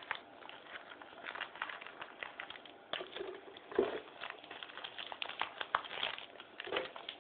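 Paper tea-bag sachets rustling and crinkling as they are shuffled and pawed about, a run of small irregular crackles and ticks.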